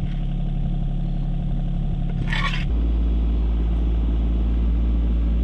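Rural King RK24 tractor's Yanmar diesel engine running steadily in the background, its low drone getting louder about halfway through. A single short shovel scrape in dirt comes a little over two seconds in.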